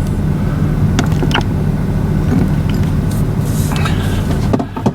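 Engine and road noise of a vehicle heard from inside the cab: a steady low rumble with a few light clicks, which drops away suddenly near the end.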